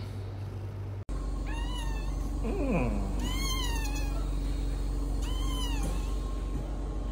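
Newborn kitten mewing: three thin, high cries, each rising then falling, spaced about a second and a half apart. A short falling whine sits between the first two, over a steady low hum.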